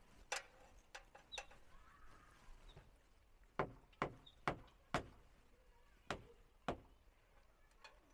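Sharp knocks on the wooden boards of a shed frame being fixed in place: a few lighter strikes early, then four hard blows about half a second apart, then two more.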